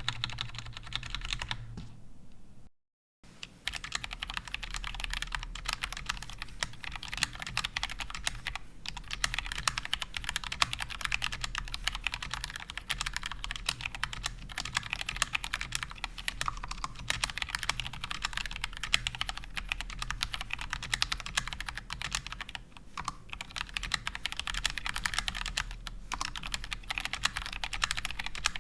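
Fast, continuous typing on a GMMK Compact mechanical keyboard with Gateron Brown tactile switches, a steady stream of keystroke clicks and clacks, broken once by a short gap about three seconds in.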